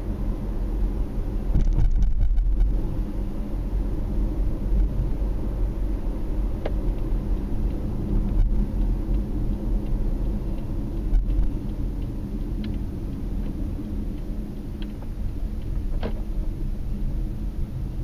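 Steady low rumble of road and engine noise heard from inside a moving car, a little louder about two seconds in, with a few faint clicks later on.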